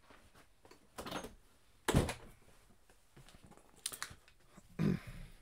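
A handful of separate knocks and thuds in a small room, door-like, the loudest about two seconds in, with lighter ones near four and five seconds in as a person settles back at a desk.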